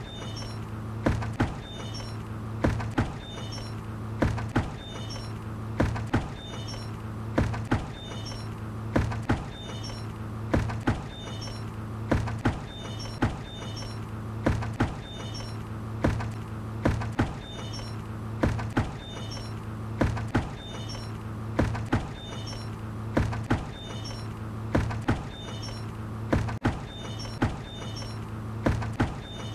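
A hanging bucket swinging and knocking against its support, with a short creak at each swing, repeating about every two seconds over a steady low hum.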